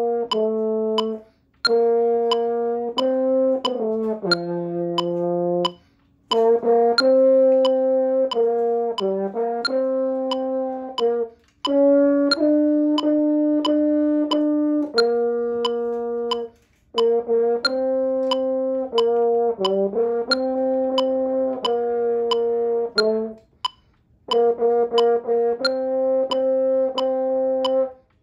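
French horn playing a melody in phrases of sustained notes, pausing briefly between phrases, over a metronome clicking steadily at 90 beats a minute.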